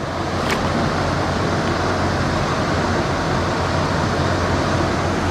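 Steady rushing of creek water, with one sharp click about half a second in.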